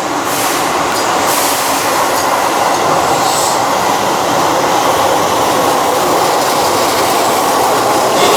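Keihan electric train running alongside the platform: a steady, loud noise of wheels on rails.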